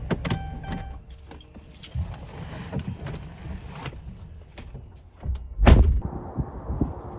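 Clicks and rattles of keys and handling at a pickup truck, then one loud heavy slam about three-quarters of the way in, a truck door shutting.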